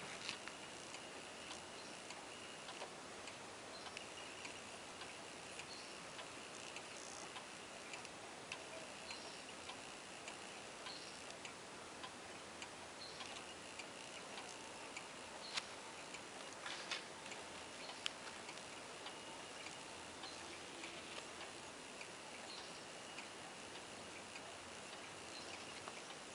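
Antique Gustav Becker pendulum wall clock ticking steadily and faintly, its escapement running. A few louder clicks come about halfway through.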